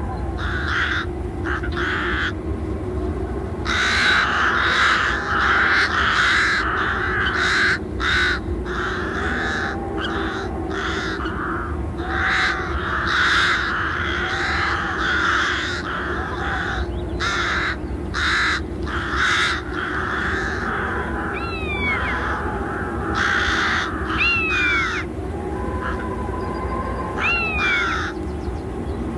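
Birds calling: many short, harsh calls one after another, with a few falling whistled notes in the second half, over a steady low hum.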